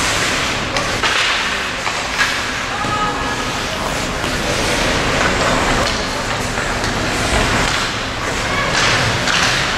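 Ice hockey arena crowd noise: spectators' voices and calls mixed into a steady din, with a few sharp knocks, most plainly about a second and two seconds in.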